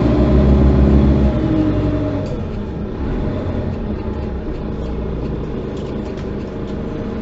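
Diesel engine of a Mercedes-Benz O530 Citaro city bus heard from inside the bus, pulling strongly with a deep hum for the first couple of seconds, then easing off and settling to a lower, steady running rumble with road noise.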